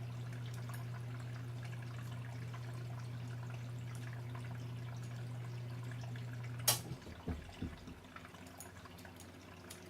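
A steady low hum that stops with a sharp click about two-thirds of the way through, followed by a few soft low thumps.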